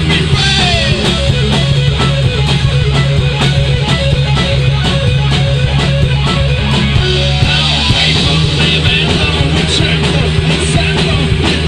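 Heavy metal band playing an instrumental passage: electric guitar over bass and drums, with no vocals.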